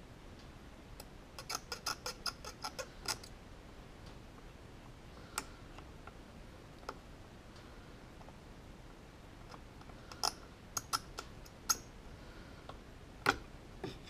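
Faint, sharp clicks and ticks in scattered clusters as a large electrolytic filter capacitor is worked loose from a powered subwoofer's amplifier board. There is a quick run of about eight clicks near the start, a few single ones, another run a little after the middle, and one more near the end.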